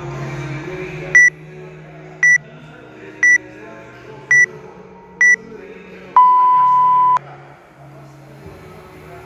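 Workout timer counting down: five short high beeps about a second apart, then one longer, lower beep marking the start of the timed set. Background music plays under it.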